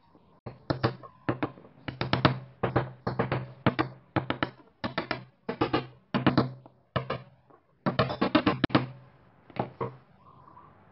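Claw hammer striking a steel punch held on a wooden block: quick runs of sharp metallic taps, several a second, each with a short ring, stopping about ten seconds in.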